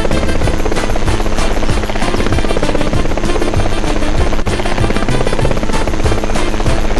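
A loud, fast, continuous rattling clatter layered over music, typical of a stacked sound-effects track.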